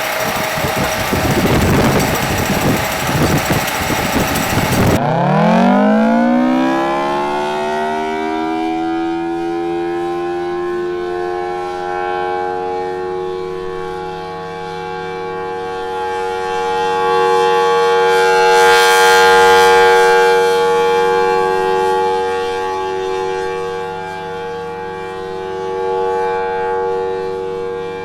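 Loud rushing noise that cuts off abruptly about five seconds in. Then a mechanical air raid siren winds up, its several tones gliding up in pitch over a few seconds and settling into a steady wail. The wail swells louder near the middle and eases off again.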